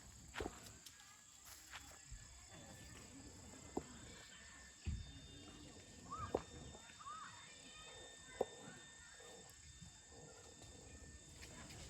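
Faint, steady high-pitched insect chorus, crickets, with a few scattered light clicks and knocks.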